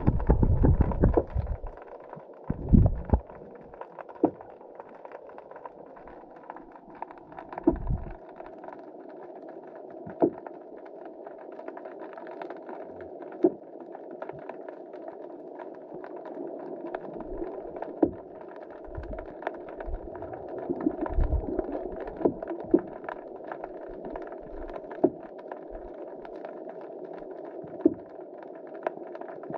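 Underwater sound picked up by a GoPro inside its waterproof housing: a steady muffled hum with scattered sharp clicks, and a few heavy low thumps near the start and now and then after.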